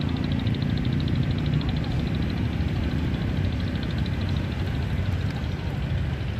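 An engine idling steadily, with a fast, even ticking above it that fades out about four and a half seconds in.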